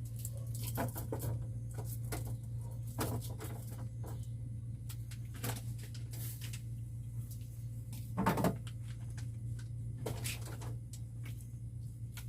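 Refrigerator compressor humming steadily, with scattered rustles, clicks and knocks of containers being handled and set into the fridge; one louder knock about eight seconds in.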